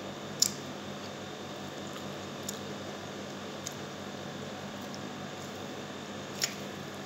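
Someone eating rice and pork with her hand: quiet chewing and a few short, sharp smacking clicks, the loudest about half a second in, over a steady low room hum.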